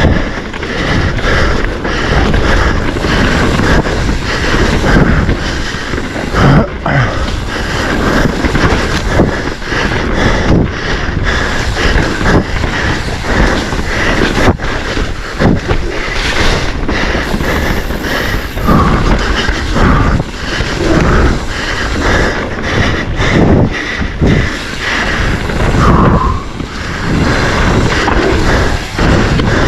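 Mountain bike ridden fast over a rough dirt trail: steady wind rush on the microphone, with frequent knocks and rattles from the bike over the terrain.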